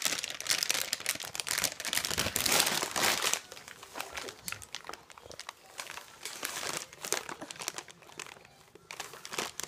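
Irregular crinkling and crumpling of food packaging as a toddler handles it, loudest in the first three and a half seconds and sparser after.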